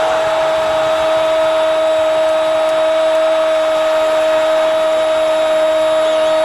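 A football radio commentator's long drawn-out 'gol' shout: one vowel held on a single steady pitch for the whole stretch. Crowd noise from the stadium sits underneath.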